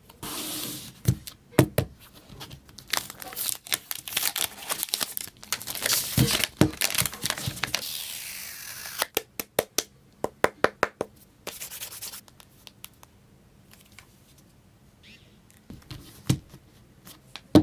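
Packaging of a new smartphone being torn open and handled: stretches of tearing and rubbing rustle broken by sharp clicks and taps, with a quick run of clicks about two-thirds of the way through.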